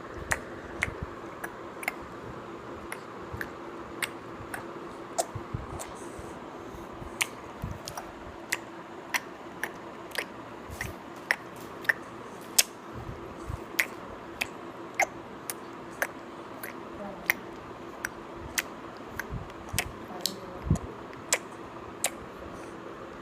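A five-month-old baby's mouth clicking and smacking while sucking milk: sharp, irregular clicks about one to two a second, with a few soft low thuds.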